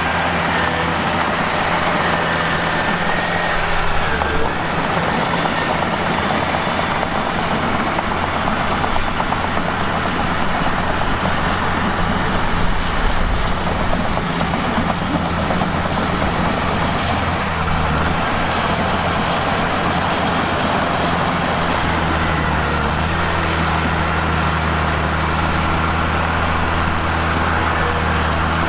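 Diesel engine of a Mitsubishi crawler bulldozer running steadily at work, its low drone shifting a few times as the machine is worked.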